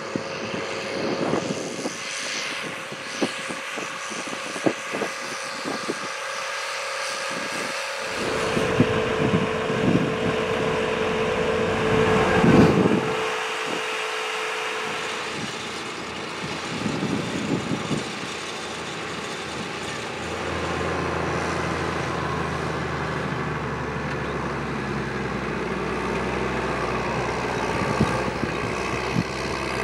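New Holland T7060 tractor's diesel engine running as it pulls a slurry tanker and soil injector across the field. A steady drone that changes with each shot: a steady higher tone in the middle stretch, and a lower steady hum in the last third.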